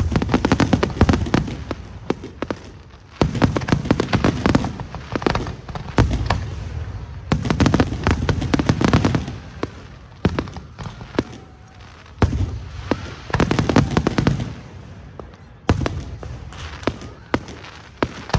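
Fireworks show: waves of rapid bangs and crackling, each lasting one to two seconds, with short lulls between them.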